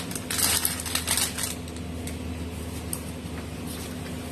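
Snack packets and groceries being shifted around in a plastic toy shopping cart, crinkling and clattering for about a second and a half. A steady low hum follows.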